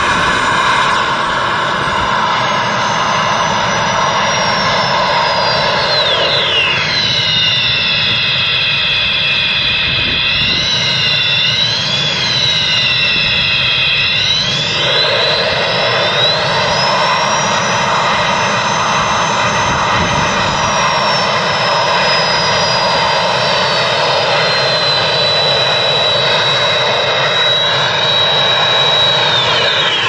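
KITT-style turbine sound unit running: a steady jet-engine whine with a high whistle that dips and wobbles in pitch, sweeps back up, then slowly falls and drops away near the end.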